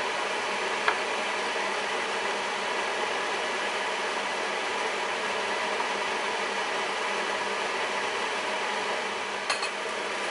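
A spatula stirring pasta in cream sauce in a frying pan, knocking against the pan once about a second in and again near the end, over a steady hiss.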